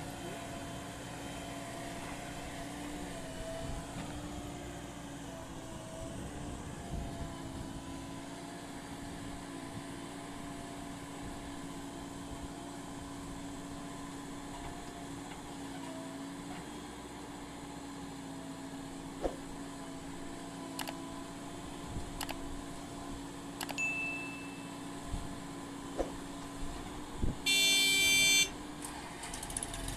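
Diesel engine of a JCB backhoe loader running steadily as it digs and loads sand, with a few sharp knocks in the second half. A loud pitched tone, like a horn, sounds for about a second near the end.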